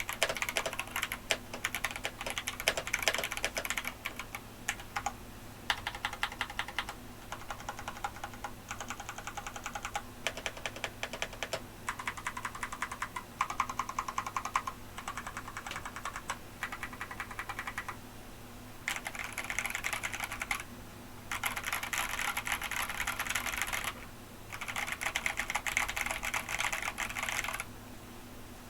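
Mechanical keyboard with lubed Hako Royal Clear tactile box switches being typed on. The keystrokes sound closer to a clicky switch than to a tactile bottom-out, with the switches still scratchy. Separate presses come first, then three fast runs of typing in the second half.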